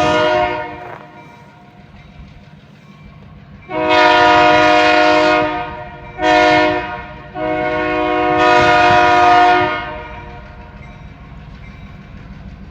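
Diesel locomotive's multi-chime air horn blowing the grade-crossing signal: the end of one long blast, then a long, a short and a long blast. A low engine rumble runs underneath.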